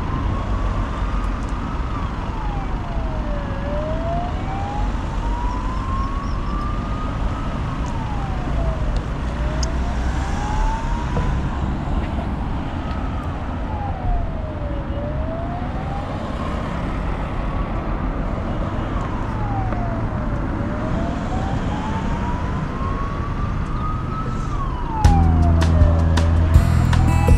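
Emergency vehicle siren sounding a slow wail. Each cycle climbs in pitch over about three to four seconds and drops back in about a second and a half, repeating five times over a steady low traffic rumble. Strummed guitar music comes in near the end.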